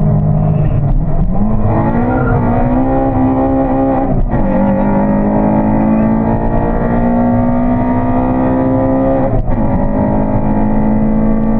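Honda Civic EP3's four-cylinder VTEC engine accelerating hard on track, its pitch rising steadily. Two quick upshifts, about four and about nine seconds in, each drop the revs before it climbs again.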